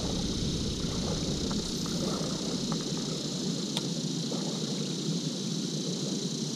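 Steady outdoor background noise: a low rushing with a constant high hiss above it, and a few faint ticks.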